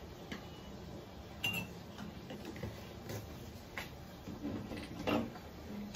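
Light clicks and knocks of a metal spoon and jars being handled while coffee is made, with one short ringing clink about one and a half seconds in and a louder knock near the end.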